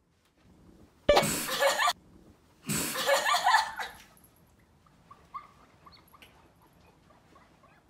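A sudden thump, then two bursts of loud, breathy laughter, trailing off into faint chuckles.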